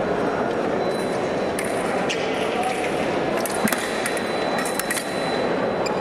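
Foil blades clinking together and fencers' shoes striking the metal piste, a cluster of sharp clicks and clinks from about a second and a half to five seconds in, over a steady murmur of voices in a large hall.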